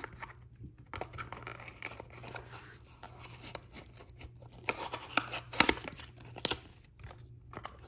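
Glossy paper checklist rustling and scraping against a cardboard blind box as it is worked out of the box, with a few sharp crinkles and clicks between about five and six and a half seconds in.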